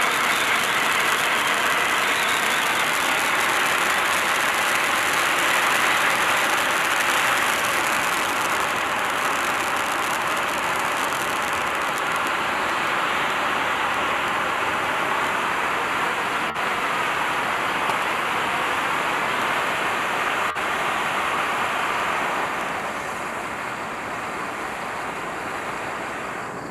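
Standard Fireworks Peacock Fountain, a 60-second ground firework fountain, hissing steadily as it sprays sparks. The hiss weakens over the last few seconds as the fountain burns down.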